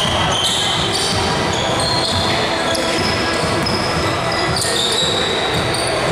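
Basketball game play in a gym: the ball bouncing on the court, with voices echoing in the hall.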